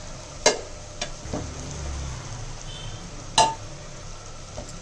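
Slotted spatula stirring frying onions and herbs in a steel pot, scraping the bottom, with two sharp knocks against the pot about three seconds apart and a few lighter clicks over a faint sizzle.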